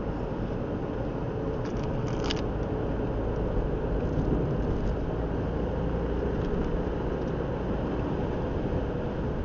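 Car driving along a country road: a steady rumble of tyres and engine at road speed, with a few brief clicks about two seconds in.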